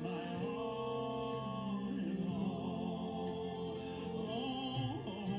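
Worship song music with long held notes that change chord every second or two, with no words sung.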